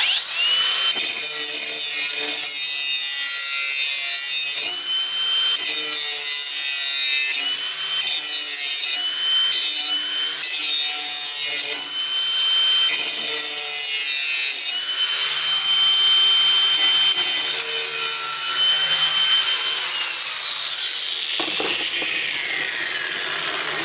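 Angle grinder with a metal-grinding disc sharpening a steel lawnmower blade: a high motor whine over the harsh scrape of grinding, its pitch sagging each time the disc bites into the blade. About 20 s in it is switched off and winds down.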